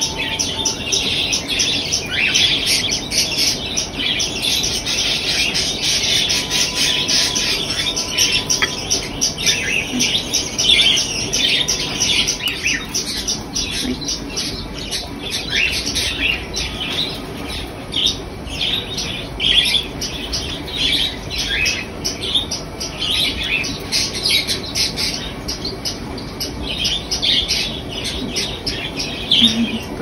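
Budgerigars chirping and squawking in a quick, unbroken run of short high calls.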